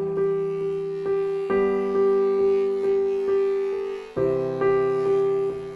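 Background piano music: gentle notes struck about every half second and left to fade, with the chord changing twice.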